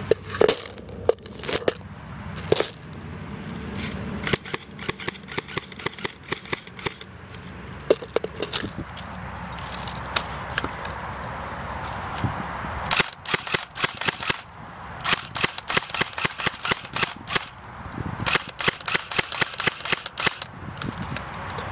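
Airsoft guns firing: a few single shots, then long rapid bursts of sharp clicking shots, three or four bursts in all, the later ones coming close together.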